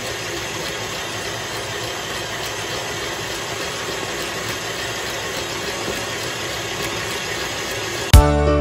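Krups stand mixer's motor running steadily at speed, its whisk whipping thick boiled icing in a stainless steel bowl. Music starts suddenly near the end.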